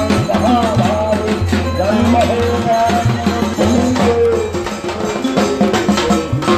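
Folk-style music: a wavering melody line over a steady low drone, with light percussion.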